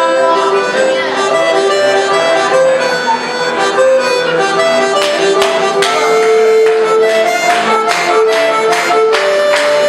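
Piano accordion playing a melody over held chords. From about halfway through, sharp beats join in, evenly spaced in time with the music.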